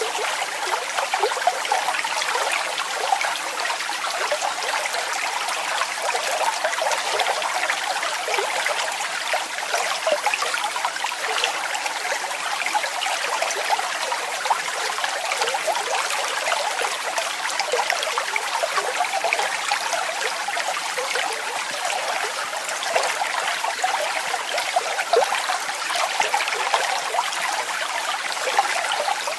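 Waterfall: water falling and splashing, a steady rush made up of many small splashes, with little deep rumble.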